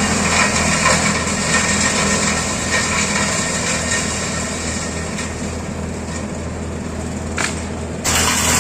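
Engine-driven wood-shredding machine running steadily as it grinds wood into sawdust, with a constant low engine hum. The sound thins and softens for a few seconds, then jumps back to full loudness suddenly near the end.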